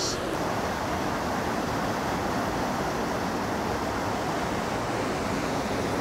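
Waterfall rushing steadily, an even, unbroken noise of falling water.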